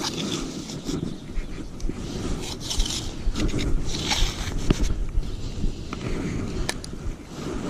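Irregular rustling and scraping of hands handling fishing tackle while changing a rig, with wind rumbling on the microphone.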